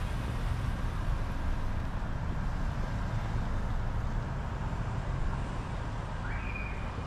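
Steady low rumble of slow street traffic, cars' engines and tyres on the road. Near the end a short high tone rises and then holds briefly.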